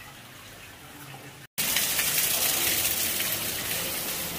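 Low, steady background noise, then after an abrupt cut about a second and a half in, a loud, steady rush of running water.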